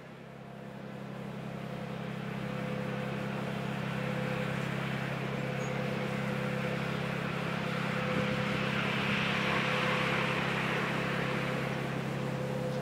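A large cargo ship's machinery running with a steady low hum and a faint higher tone, fading in over the first few seconds, with a hiss that grows louder about eight seconds in.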